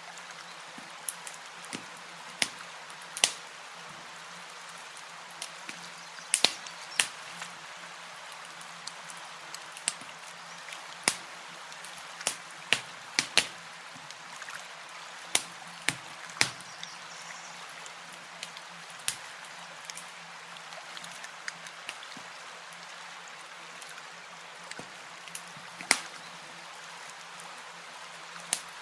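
Campfire crackling: irregular sharp pops and snaps of burning wood, roughly one a second, over a steady soft hiss.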